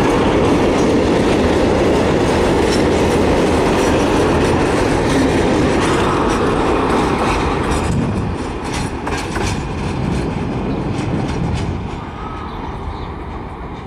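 Freight train of mineral hopper wagons rolling past, the wheels rumbling and clacking over the rail joints. The last wagon goes by about seven or eight seconds in, and the clatter then fades as the train moves away.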